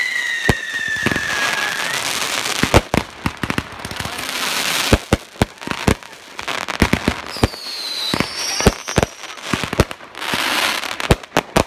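Fireworks display: a rapid, irregular run of sharp bangs from bursting aerial shells, mixed with stretches of crackling hiss. Two high tones fall in pitch, one at the start and one about eight seconds in.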